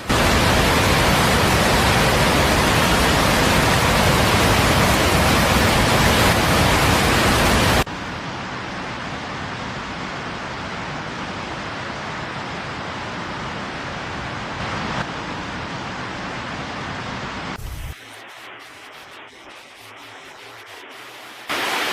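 Rushing floodwater as a steady, even rush of noise. It cuts abruptly to a quieter rush about eight seconds in, then drops again to a fainter rush with a few clicks near the end.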